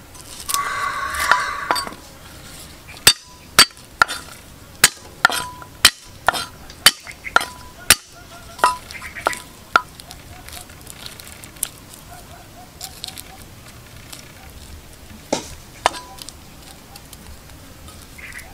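Metal cooking utensil clinking against a pan: a short rattle at the start, then a string of sharp knocks about two a second, some ringing briefly, and a couple more knocks near the end.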